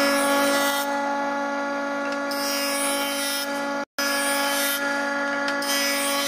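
Jointer running with a steady hum while a white-faced board is fed along its fence over the cutterhead, a rushing cutting noise swelling and fading about three times as the edge is planed. The sound cuts out for an instant a little past halfway.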